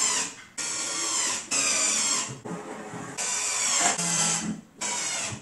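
Cordless drill/driver run in about six short bursts into a plywood drawer bottom, its motor whine climbing in pitch at the start of each burst.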